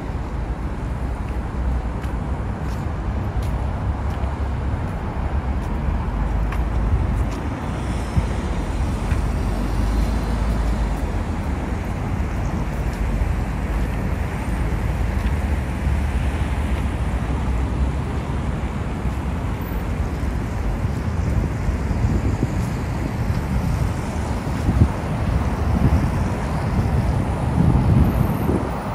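Steady city road traffic noise from cars on the street, with passing cars coming louder and closer near the end.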